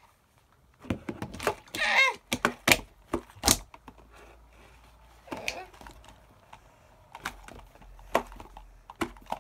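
Knocks and clicks from a small plastic table and toys being handled and moved, bunched in the first few seconds and sparser later. A child's voice is heard briefly about two seconds in.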